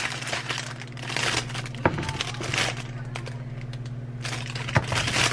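Plastic bag around a bunch of green grapes crinkling and rustling as grapes are plucked off by hand, with two sharp knocks as grapes drop into an empty plastic container. A steady low hum runs underneath.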